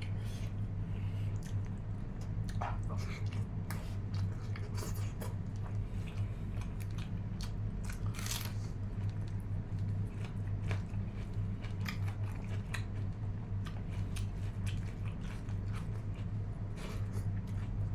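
Person eating close to the microphone: chewing and biting, with many short wet clicks scattered irregularly throughout, over a steady low hum.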